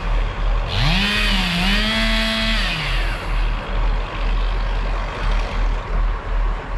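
A chainsaw revved once for about two seconds. It climbs quickly to full speed, dips briefly, holds high and then drops back. A steady low rumble runs underneath.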